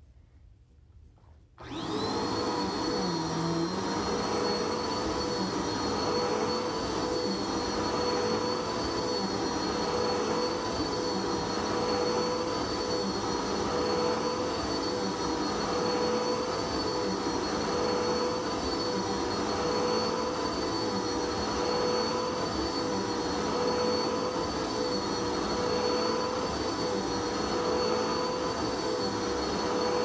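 Bagless upright vacuum cleaner switched on about a second and a half in. Its motor spins up quickly and then runs steadily with a high whine while it is pushed over carpet.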